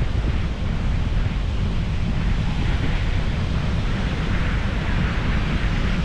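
Wind buffeting the microphone in a steady low rumble, over the continuous wash of ocean surf breaking on a sandy beach.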